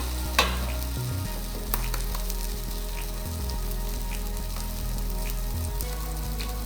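Egg frying in hot oil in a frying pan, sizzling steadily, with a few sharp clicks of a spatula against the pan.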